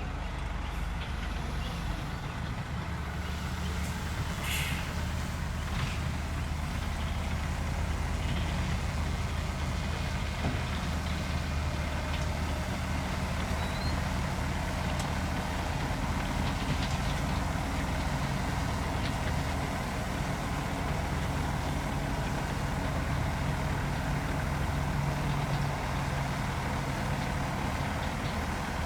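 Heavy diesel engine of earthmoving machinery running steadily under work with a constant low drone. A short high hiss comes about four and a half seconds in.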